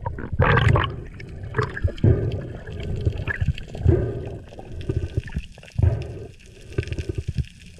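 Muffled underwater water noise heard through a submerged camera: low gurgling surges of water, roughly once a second, with faint clicks, as a freediver moves while holding a pole spear.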